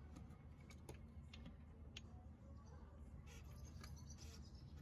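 Near silence: a faint low hum with a few small, faint clicks of the metal rear maintenance stand being set against the motorcycle's swingarm.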